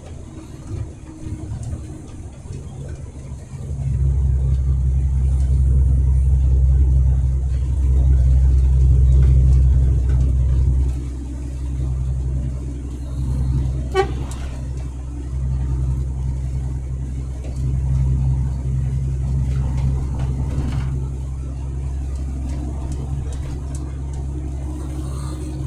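Truck engine running under way, a steady low drone that grows louder about four seconds in and eases off again before the middle. A short horn toot sounds about halfway through.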